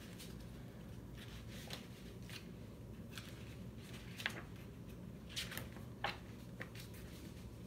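Pages of a hardcover picture book being turned by hand: several brief paper rustles and flicks over a faint steady room hum.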